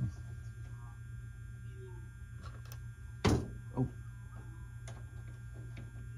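A sharp knock about three seconds in, then a smaller one half a second later, from hands working a wing strut on a model biplane. Under it runs a steady low hum, with faint talk in the background.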